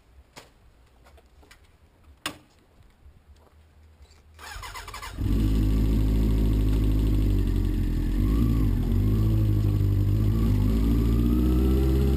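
Two sharp clicks, then the Kawasaki ZXR 400's inline-four engine is cranked by the electric starter, catches about five seconds in and settles into a steady idle. The owner reports that this engine has developed a knock.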